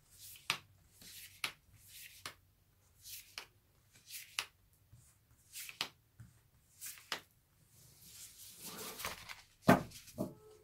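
Tarot cards handled on a table: soft swishes and light taps as cards are slid out of a fanned deck, then a longer sweep near the end as the deck is gathered up, ending in a sharp tap.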